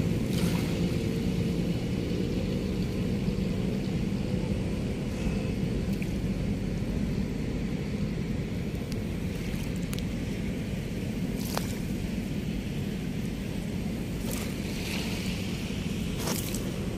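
Steady low outdoor rumble, with a few short faint clicks in the second half.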